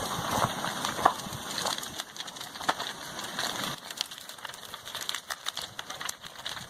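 Lava flow overrunning a wooden house, crackling and crunching. A dense noisy crackle with some low rumble gives way, about four seconds in, to scattered sharp snaps and cracks of burning, splintering wood.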